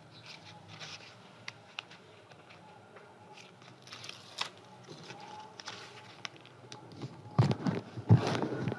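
Scissors snipping paper, with faint scattered clicks and rustles. About seven seconds in, louder paper handling begins: a quick run of crinkles and knocks.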